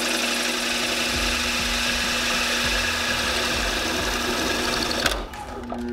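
Drill press boring through a PVC pipe with a 1 1/4 inch Forstner bit: a steady cutting noise over the motor's hum. The cutting stops about five seconds in, and the motor hums on.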